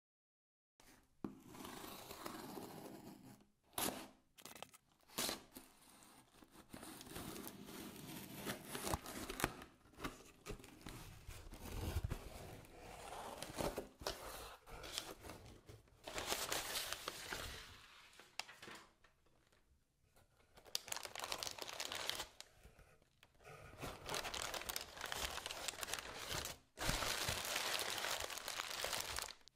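Cardboard shipping box being handled open: flaps scraping and knocking, with sharp clicks. Crumpled brown kraft packing paper is crinkling and rustling in loud bursts under gloved hands. It starts about a second in.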